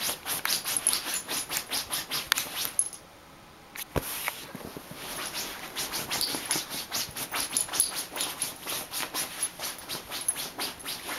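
A Basenji digging at a fabric blanket with its front paws: quick scratching strokes, about four a second. The strokes stop for about a second near the three-second mark, a single sharp knock comes, and then the scratching starts up again.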